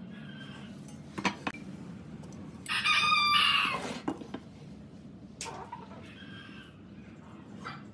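A rooster crowing once, one long call about three seconds in, over a few light clicks and knocks of a metal speed square and pen being handled on a wooden board.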